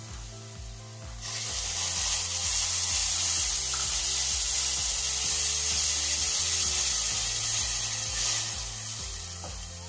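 Tomato purée poured into hot oil with fried onions and ginger-garlic paste, sizzling loudly from about a second in and dying down near the end as a wooden spoon stirs it. Background music plays underneath.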